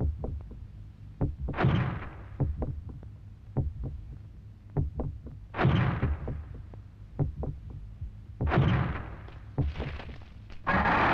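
Giant monster footstep sound effects: heavy booming thuds a few seconds apart, each with a long echoing tail, with lighter knocks and clicks between them. Music comes in just before the end.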